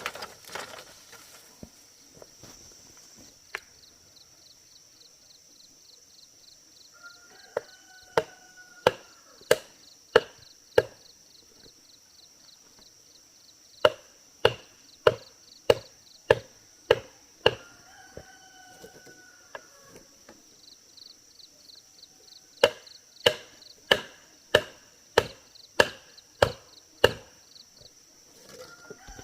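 Chopping blows on wood or bamboo, struck in three runs of about six to eight strokes each at a steady pace of roughly one and a half a second. A steady high insect drone runs under the strokes.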